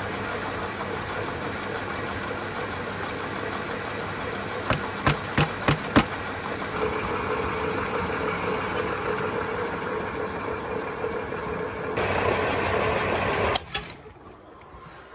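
A motor-driven machine running steadily with a low hum, with a few sharp clicks about five seconds in. It grows louder near the end, then cuts off suddenly.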